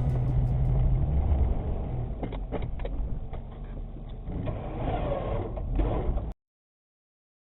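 A vehicle with a snowplow running: a steady low engine rumble with a few knocks and clatters, which cuts off abruptly about six seconds in.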